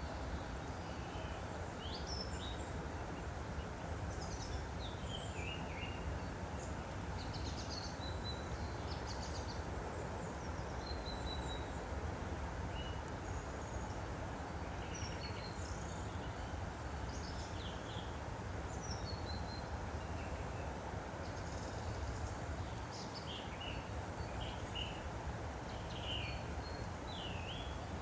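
Steady rush of a woodland stream with small birds chirping over it. The birds give short chirps and down-slurred notes throughout, and a quick run of repeated notes at the start.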